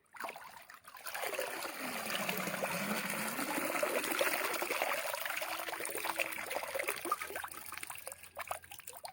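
Water trickling and pouring off a cloth-covered bait pot as it is lifted out of the water, building up and then dying away.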